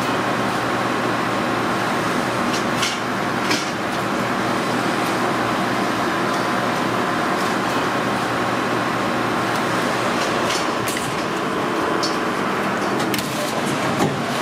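Steady commercial-kitchen background noise: an even rush with a faint hum. A few short clicks and clinks of kitchen utensils land at about 3 seconds, near 11 seconds and near the end.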